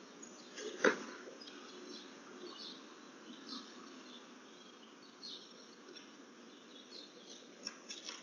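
Faint outdoor background picked up by a Ring video doorbell's microphone, with scattered faint high chirps and a single sharp knock about a second in.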